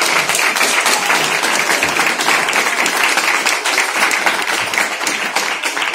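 Audience applauding: many hands clapping in a dense patter that begins to die down near the end.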